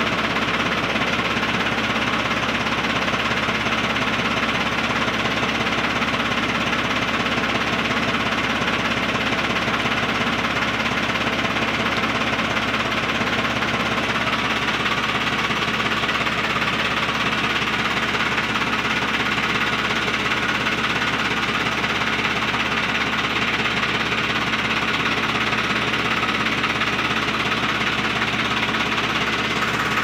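Swaraj 744 FE tractor's diesel engine idling steadily at low revs, still cold just after being started.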